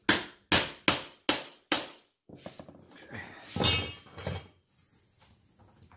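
Hammer striking a metal pull bar to knock a vinyl plank's click-lock end joint tight: five quick taps about two a second, then a single louder metallic clank with ringing a few seconds in.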